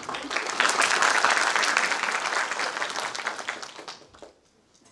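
Audience applauding, quickly building to a dense clatter of claps and dying away about four seconds in.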